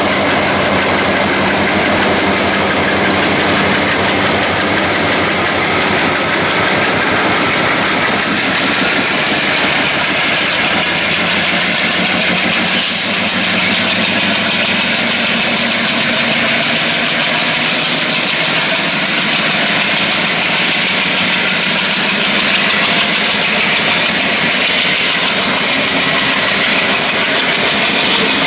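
ALCo 251 diesel engine of an Indian Railways locomotive, running loud and steady under load as it hauls a passenger train, with heavy black exhaust.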